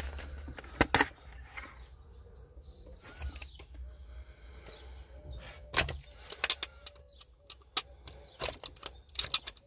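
Utility knife blade scraping the plastic trim around the cigarette-lighter socket hole, giving a scattered series of sharp scrapes and clicks. Birds chirp faintly in the background.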